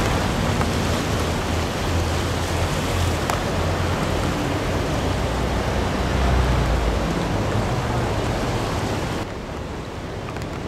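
Steady rushing noise of the swollen Delaware River in flood, with gusts of wind buffeting the microphone. About nine seconds in the sound turns quieter and duller.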